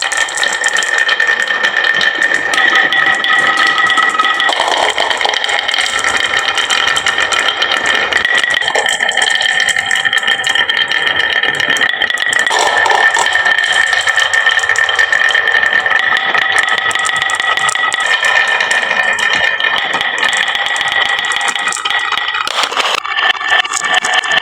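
Many marbles rolling and clattering down a wooden marble run, a dense continuous rattle with a steady ringing tone, starting suddenly.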